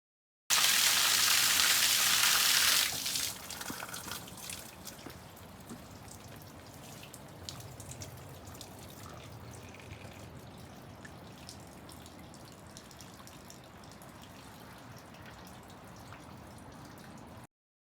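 Water rushing loudly for a couple of seconds, then falling away to a steady trickle with scattered drips, which cuts off abruptly near the end.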